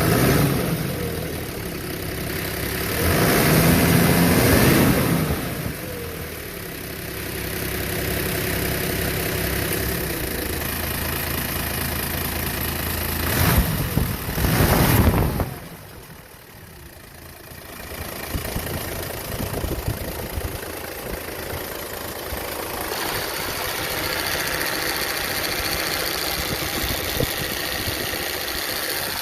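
Toyota Land Cruiser 80 Series 1HD straight-six diesel running with its AC compressor engaged and making a noise. The sound swells loudly twice, around four and fourteen seconds in, and a thin high whine joins about 23 seconds in. The owner was told this noise means a size-17 compressor has been fitted where a size 15 belongs.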